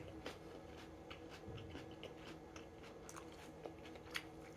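Faint, wet chewing of chicken wings close to the microphone, with scattered small clicks and one sharper click about four seconds in.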